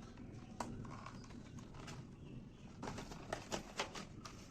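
Packaging of a Jolo Chip being opened by hand: a single click about half a second in, then a quick run of clicks and crackles around three to four seconds in, over a low steady background.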